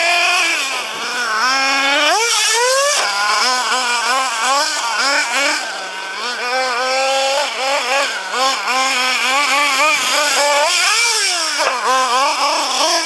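Small nitro glow engine of an RC truggy, a Hobao Hyper ST, revving up and down as the throttle is worked, with a long climb in revs about two seconds in and another around eleven seconds. By the owner's account the engine was running lean from a fuel-pressure problem in the fuel tank and lines.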